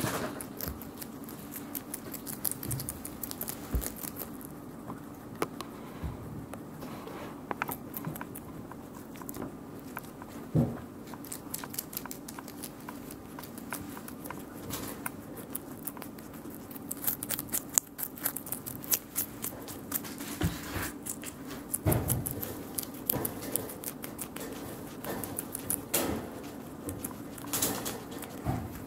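Guinea pigs eating vegetables: dense crunching and chewing clicks with the patter of small feet, over a steady low hum.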